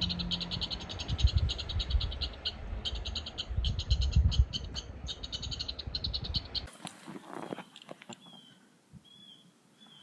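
An outdoor chorus of small calling animals, a fast pulsing high-pitched trill, with a low rumble of wind on the microphone under it. About two-thirds of the way in the rumble and trill cut off abruptly, leaving single short chirps repeating a little more than once a second.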